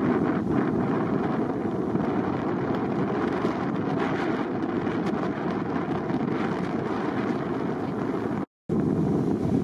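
Steady roar of breaking surf mixed with wind buffeting the microphone. The sound cuts out completely for a split second near the end.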